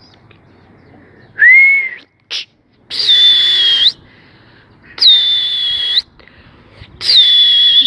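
A person whistling loudly to call pigeons in: a short rising whistle, then three long whistles about two seconds apart, each dropping a little in pitch and then held steady.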